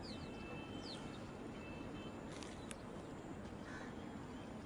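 Riverside outdoor ambience: a steady background hiss with faint bird chirps in the first second and a thin, steady high whistle lasting about two seconds.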